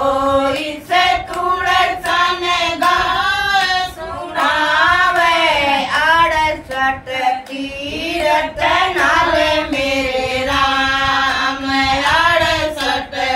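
Women singing a Hindi devotional bhajan together in long, wavering held notes, with a lead voice carrying the melody.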